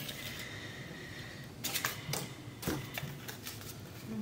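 Light clicks and rustles of craft materials being handled as egg-carton butterflies are threaded onto twine, with a few sharp taps from about a second and a half in.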